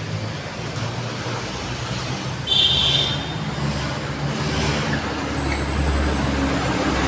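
Road traffic on a city street: a steady rumble of engines and tyres, with a short, sharp, high squeal about two and a half seconds in.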